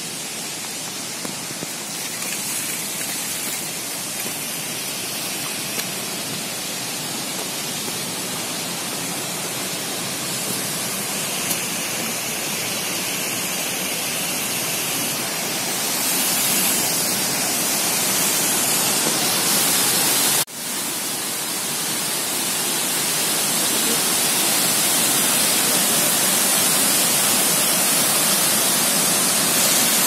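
Mountain waterfall rushing over boulders: a steady roar of falling water that grows louder partway through and briefly cuts out about two-thirds of the way in.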